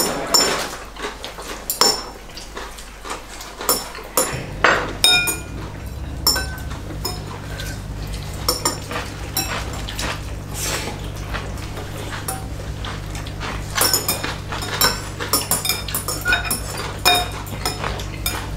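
Chopsticks clinking and scraping against a porcelain bowl as spicy noodles are mixed and lifted: a run of irregular light clinks, some with a short ringing tone. A steady low hum sets in about four seconds in.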